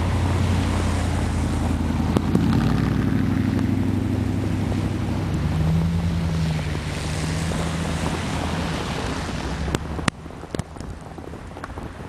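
Blizzard wind buffeting the microphone, with a vehicle engine running low and steady underneath. About ten seconds in there is a click and the noise suddenly drops.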